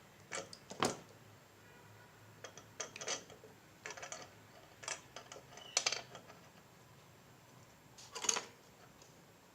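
A handful of irregular small clicks and short scrapes: tools and a wire being handled on a workbench during soldering. The sharpest come about six seconds in and just after eight seconds.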